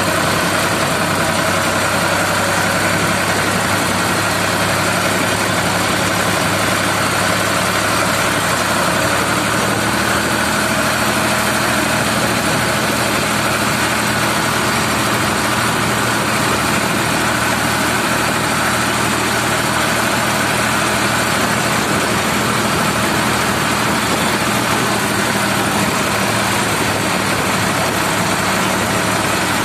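Ford 3600 tractor's three-cylinder engine running steadily at full road speed, heard from the driver's seat as a constant hum over a steady hiss.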